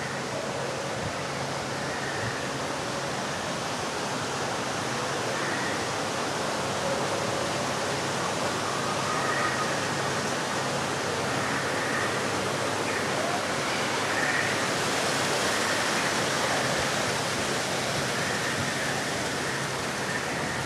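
Steady, even rushing of running water, with faint snatches of distant voices now and then.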